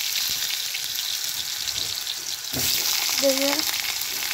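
Potato wedges sizzling in hot oil in an iron kadai, a steady crackling hiss that grows louder about halfway through.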